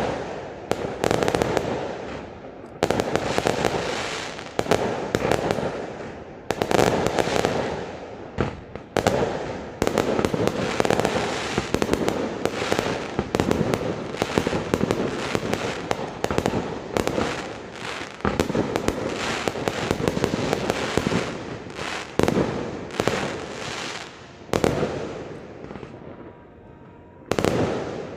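Fireworks display: shells bursting one after another, each blast trailing off into crackle, coming thick and fast through the middle and thinning to scattered bursts near the end.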